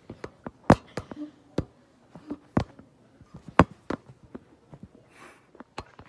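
Handling noise: a string of sharp, irregular knocks and taps as the phone filming is moved and bumped against a hard lab bench, three of them much louder than the rest.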